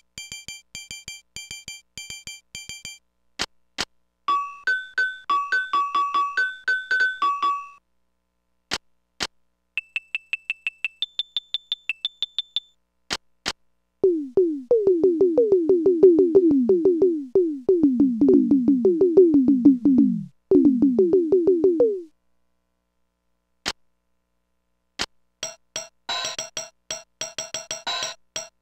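Casio SA-10 mini keyboard played in a string of short test phrases, each in a different preset tone, with brief silences between them: high repeated beeps, a two-note tune alternating up and down, fast low notes that each fall in pitch, and near the end a busier chordal pattern.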